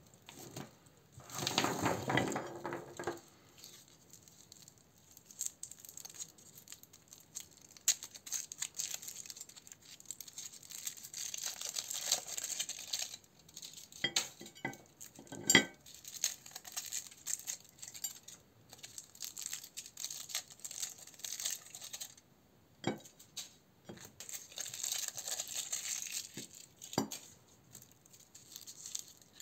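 Foil candy wrappers crinkling and tearing as chocolate umbrellas are unwrapped by hand, in several bursts with quieter gaps. A few sharp clinks come from the chocolates being set down on a ceramic plate.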